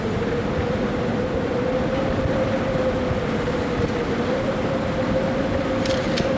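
Steady drone of the Yotei Maru ferry's machinery while under way: a constant hum with a slightly wavering tone over a noisy rumble, with two faint clicks near the end.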